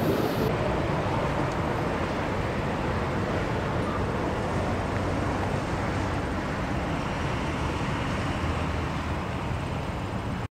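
Steady rumble of passing vehicle noise, easing slightly and then cutting off abruptly near the end.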